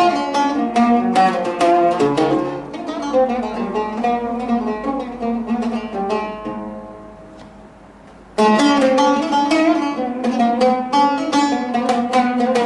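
Solo oud played with a plectrum, a melodic run of plucked notes. The playing softens and dies away to a quiet ring about two-thirds of the way through, then resumes suddenly at full strength.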